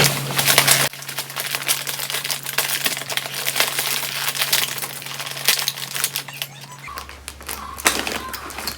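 Plastic cookie package being opened and handled: irregular crinkling and crackling of the wrapper, with many small clicks.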